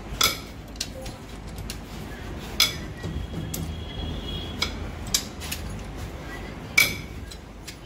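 Sharp metallic clinks of a steel socket and long-handled wrench on the cylinder head bolts as the head is tightened down onto the engine block, about five separate clinks spaced a second or more apart.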